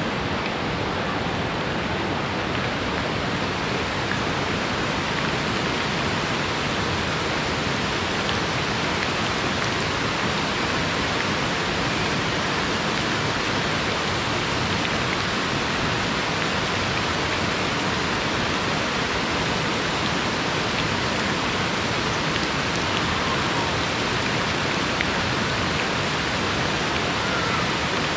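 Steady rush of falling rain and a fast-flowing river running over rocks, an even wash of water noise with no breaks.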